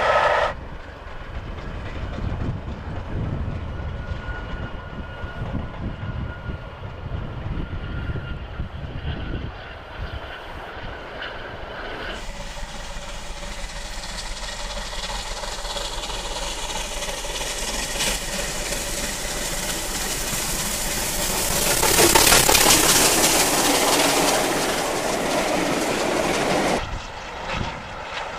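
Steam-hauled passenger trains in a run of separate recordings. First a train rumbles past at a distance. Then a train approaches through a station at night, with a hiss building up until it passes loudly about two-thirds of the way in. Near the end a streamlined LNER A4 Pacific runs along the line.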